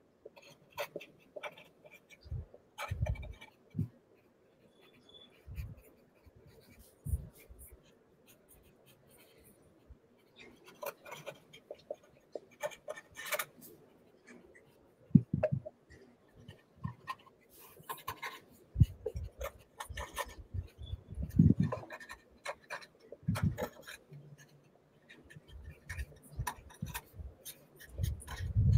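Pens scratching on paper as people write, in short irregular strokes, with scattered clicks and a few low bumps against the desk.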